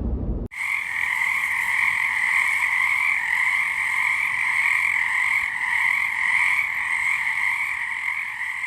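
A dense chorus of frogs calling steadily, many voices blending into one continuous high trill. It starts abruptly about half a second in and begins to fade near the end.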